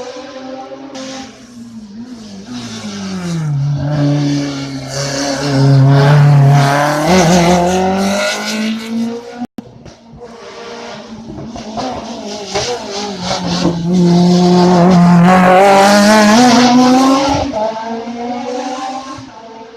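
Two hill-climb race cars in turn passing at full throttle, each engine note swelling, rising in pitch and fading away. A sudden break about halfway separates the two passes.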